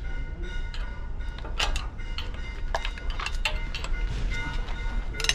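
Irregular metallic clanks and clinks, about two a second, over a steady high ringing: steel hand tools and parts knocking against a truck wheel hub during reassembly.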